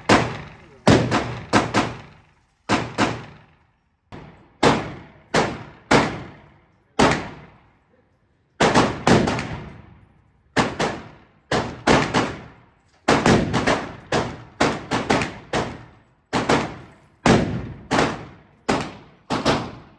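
Gunfire at a shooting range: about thirty shots in irregular strings, some single and some in quick doubles, each with a short echoing tail.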